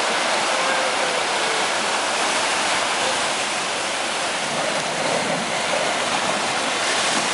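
Ocean surf washing steadily onto a sandy beach.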